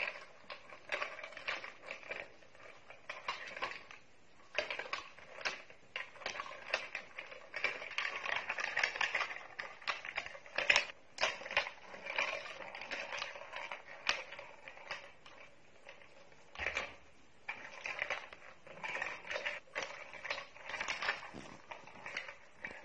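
Plastic treat-dispensing tumbler toy rattling and clattering on a tile floor as a cat bats and rolls it: irregular clicks and rattles with short pauses.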